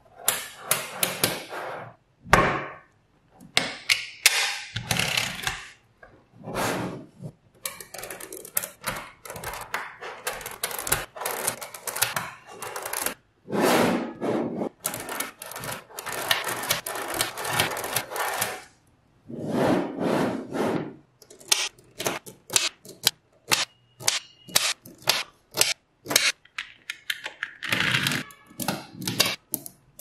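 Small magnetic balls clicking and snapping together and rattling on a tabletop as hands join and press grids of balls into sheets. The clicks come in rapid clusters broken by short pauses.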